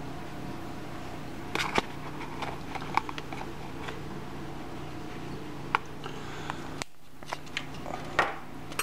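A steady low hum with a few light, scattered clicks and taps from a measuring spoon and crock pot, as poultry seasoning is sprinkled over raw chicken breasts. The sound briefly drops out about seven seconds in.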